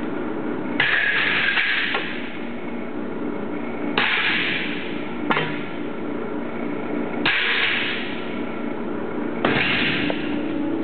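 Glass-cutting work on a cutting table: four sharp cracks about three seconds apart, each followed by about a second of hiss, over a steady low machine hum.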